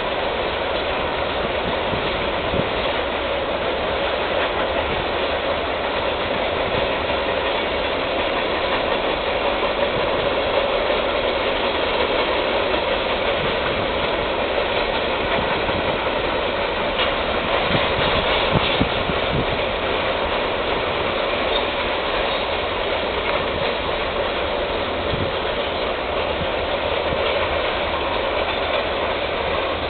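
Train rolling along the rails, a steady rumble and rail noise, with a short cluster of louder clacks about two-thirds of the way through.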